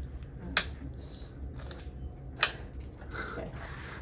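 Two sharp clicks, about two seconds apart, with light handling rustles between them, as a resin-mounted paint sample block is set down and positioned on a microscope stage.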